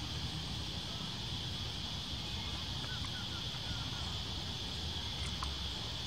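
A steady, high-pitched insect chorus drones on without a break, with a few faint short chirps about three seconds in.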